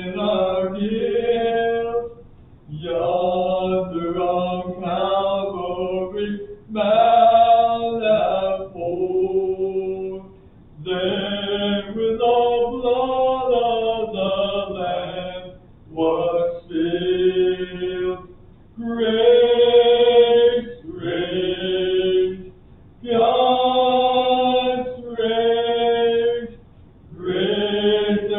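Hymn singing: voices holding long, steady notes in phrases of a few seconds, with short breaks between phrases.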